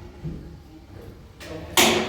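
A power tool's motor switches on abruptly near the end, loud and whirring, after a stretch of faint knocks.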